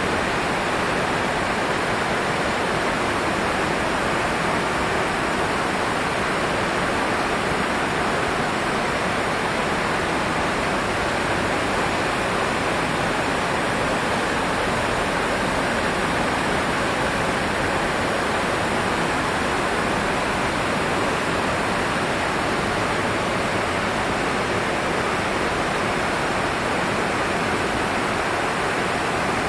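The Beas River in flood: a swollen, silt-laden torrent rushing over and between boulders, making a loud, steady rush of water that never lets up.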